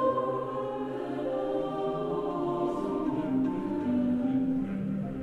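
Background music: choir-like voices holding long notes that step from one pitch to the next.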